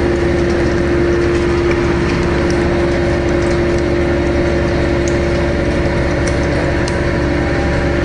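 Two-ram aluminium can baling press running: a steady machine hum with one strong held tone, and a few faint clicks over it.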